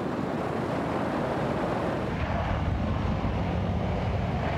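Radial engines of a PBY Catalina flying boat running steadily with the propellers turning: a steady low drone under a broad rushing noise.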